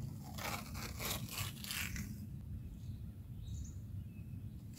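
Adhesive tape being pulled off its roll in several quick rasps in the first two seconds, as a long tape line is laid along a boat hull.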